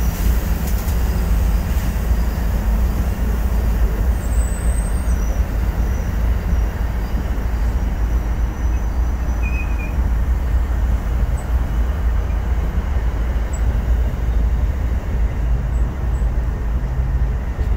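Amtrak passenger cars rolling steadily past at close range: a continuous rumble of steel wheels on the rails with a steady low hum underneath.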